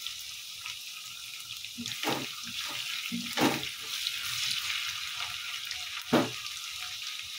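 Potato pieces frying in hot oil in a non-stick wok with a steady sizzle. A spatula stirs them, giving a few short scrapes against the pan, the loudest near the end.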